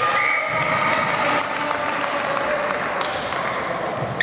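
Court shoes squeaking on a hardwood floor during play, with a few ball bounces and players calling out, echoing in a large hall.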